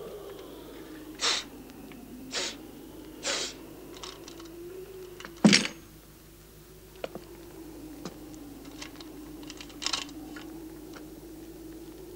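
A person moving about a wooden cabin: three soft scuffs about a second apart, then one sharp, loud click about five and a half seconds in, with scattered small ticks and another scuff later, over a faint steady hum.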